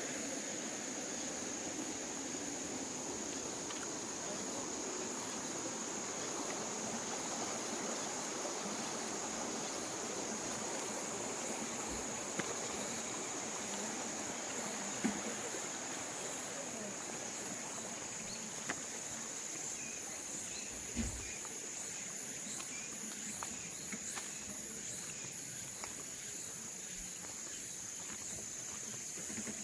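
Insects chirring steadily in a high, shrill tone, with a pulsing layer above it, over a low rumble that thins out about two-thirds of the way through; a few faint knocks.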